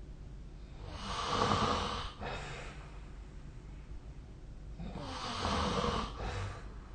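A sleeping person snoring: two long, rasping breaths about four seconds apart, each with a short break near its end.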